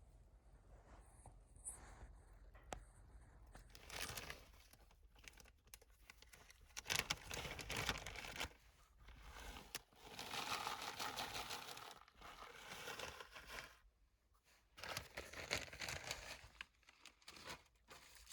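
Irregular crinkling and rustling handling noises in short, uneven bursts with pauses between them.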